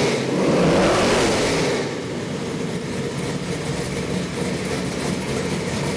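Chevy 454 big-block V8 stroker with a hydraulic roller cam, running on an engine test stand. It is revved for the first couple of seconds, then drops back to a steady idle.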